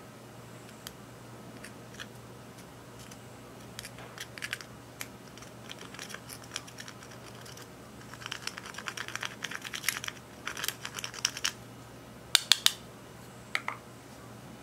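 Pressed eyeshadow being scraped and crumbled out of its pan with a small metal spatula: quick, crisp, scratchy clicks that come thick and fast in the second half, then a few sharper clicks near the end.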